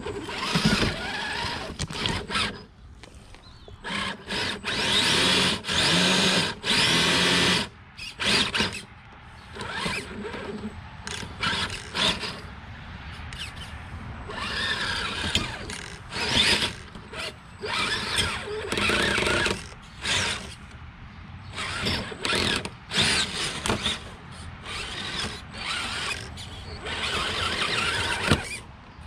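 Redcat Gen8 scale RC rock crawler's electric motor and geared drivetrain whining in short on-off bursts as the throttle is worked while it crawls over rocks.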